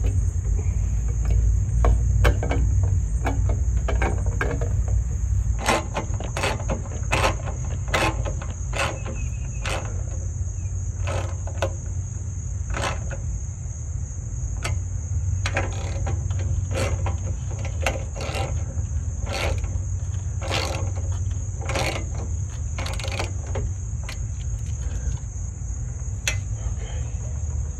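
Irregular clicks, roughly one a second with a few pauses, from a hand driver turning a screw that fastens a metal conduit strap to a wooden pole. Crickets chirp steadily behind them.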